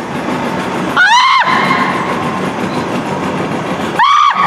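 Teenage boy screaming in fright, two short high-pitched shrieks, one about a second in and one near the end.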